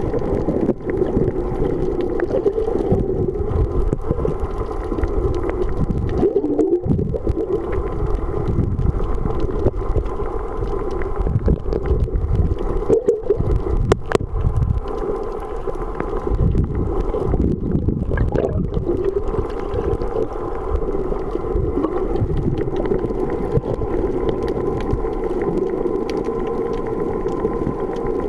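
Underwater sound through a camera's waterproof housing: a steady, muffled, low rush of moving water as a swimmer finns along, with a few faint knocks.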